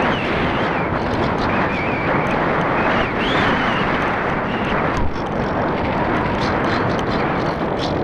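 Wind rushing over the onboard camera's microphone on a Parkzone Radian RC glider in flight, a steady noisy rush. A faint wavering high whine rides over it.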